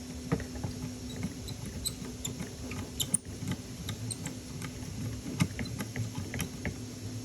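Small self-tapping screw being driven by hand into a 3D-printed plastic part: irregular light clicks and scratchy creaks of the screwdriver and plastic, over a faint steady hum.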